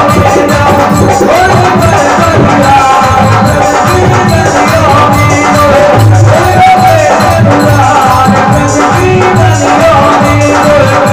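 Live bhajan accompaniment: harmonium and keyboard melody over a steady dholak drum beat, with short percussion strokes throughout.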